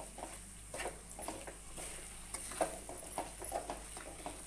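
A spatula stirring and scraping thick moong dal halwa with ghee around a metal kadhai, in irregular strokes a few times a second.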